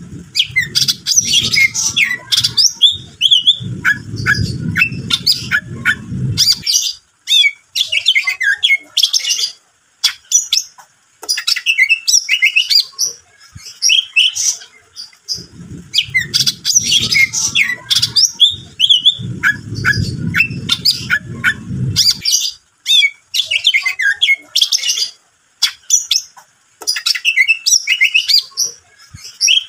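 Male greater green leafbird (cucak ijo) singing a fast, varied stream of chirps, trills, whistles and harsh squawks with brief pauses, the same passage repeating about every 15 seconds. A low rumble comes in under the song twice.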